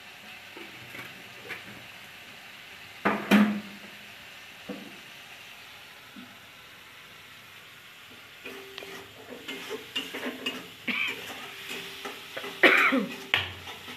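Metal spatula stirring and scraping in a steel kadai of frying tomato-and-spice masala, with a light sizzle. There is a sharp clank about three seconds in, and more frequent scraping and clinks in the second half.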